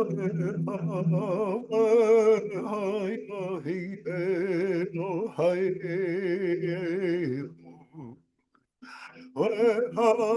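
A voice singing in long, wavering held notes, breaking off for a moment near the end and then going on.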